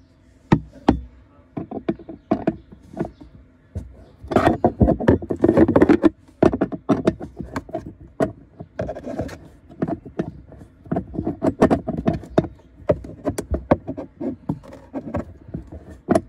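Metal socket wrench clicking and scraping on a glove-box screw as it is turned loose, with the tool knocking against the hard plastic of the glove box: irregular clicks and knocks, and a busier stretch of rattling about four to six seconds in.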